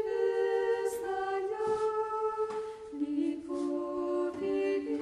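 Background music: an a cappella choir singing long, sustained chords that shift every second or two, moving to a lower chord about three seconds in.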